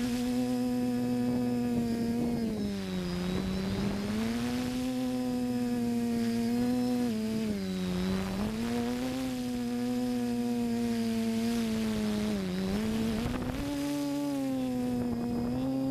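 Electric motors and propellers of a TBS FPV multirotor humming steadily in flight, heard from the aircraft itself; the pitch dips briefly three times as the throttle eases and then climbs back.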